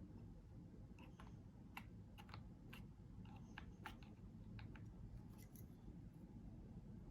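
Faint, irregular clicks and taps on a white mechanical keyboard, about a dozen spread unevenly over several seconds, over a low room hum.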